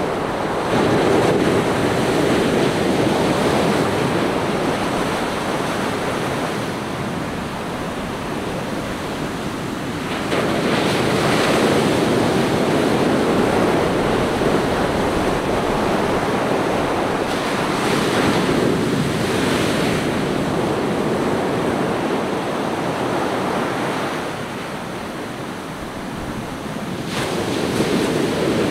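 Ocean surf: waves breaking and washing up a sandy beach in a steady rushing wash that swells and eases every several seconds. A quieter lull comes about three-quarters through, then the next wave builds near the end.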